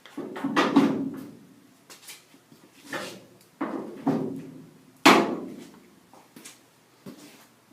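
A series of knocks and clatters from metal hand tools (sockets, breaker bar and impact drill) being picked up and set in place, with the loudest, sharpest clunk about five seconds in.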